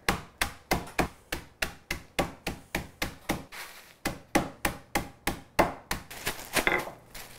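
Wooden rolling pin striking a sealed plastic bag of graham crackers on a countertop, crushing them into crumbs: steady blows about three a second, with the crackers crunching under each one. The blows grow lighter near the end.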